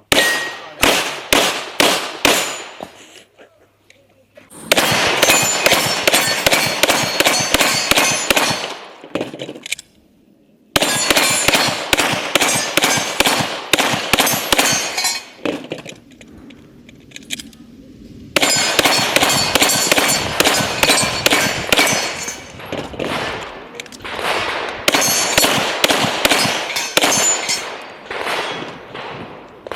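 Strings of rapid Glock pistol shots striking steel plates, each hit leaving a high metallic ring. The fire comes in several bursts, each starting abruptly.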